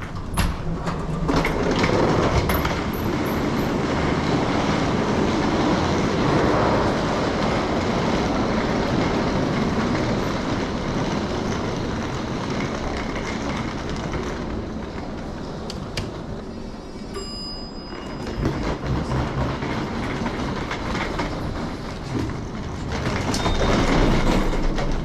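Rail car in motion: a steady rumble with wheel clatter.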